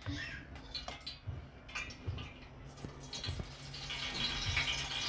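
Quiet kitchen background: a steady low hum with scattered faint clicks, and a soft hiss that builds over the last second or so.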